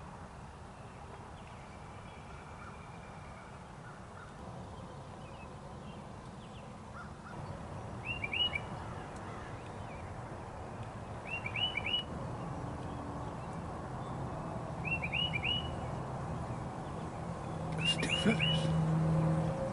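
A small songbird repeats a short phrase of three or four quick, high chirping notes about every three and a half seconds, four times, over a low outdoor background rumble. Near the end a low steady drone comes in.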